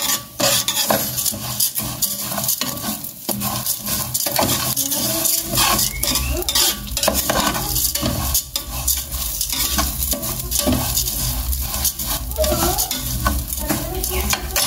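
Fideo noodles sizzling as they fry in oil in an aluminium pot, stirred with a metal spoon that scrapes and clicks against the pot again and again. The noodles are being toasted until they change colour, before the chile purée goes in.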